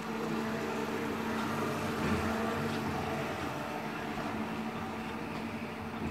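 BT electric warehouse lift truck driving across the floor: a steady low electric hum with a rumbling noise that swells about two seconds in.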